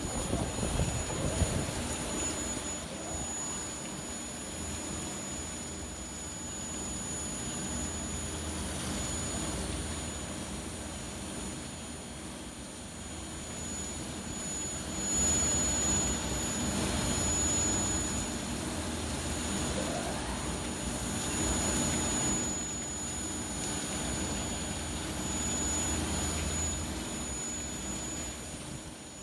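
Induction hardening machine heating and quenching the raceway of a slewing bearing ring: a steady high-pitched whine over continuous machine noise.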